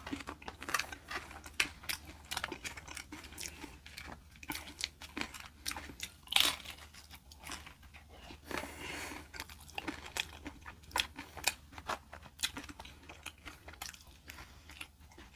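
Close-miked chewing of crunchy fried fast food: a run of crisp crunches and wet mouth clicks at an uneven pace.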